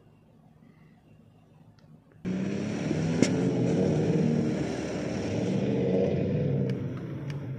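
A motor vehicle's engine running hard, coming in abruptly about two seconds in and easing off near the end.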